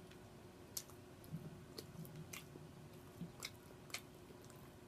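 A person chewing a mouthful of chicken and noodles close to the microphone, with a string of short, wet mouth smacks at uneven intervals.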